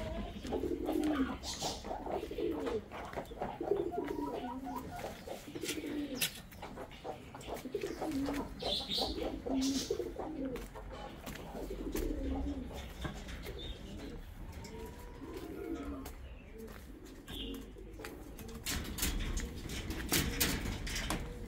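Pigeons cooing repeatedly, a low call every second or two, with a few brief higher chirps.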